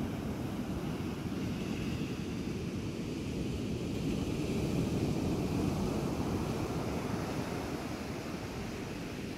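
Storm surf breaking on a sandy beach: a steady low rush of waves that swells a little about halfway through.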